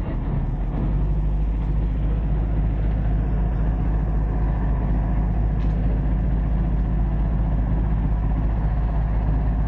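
Boat engine running steadily aboard, a low drone mixed with the rush of water and wind.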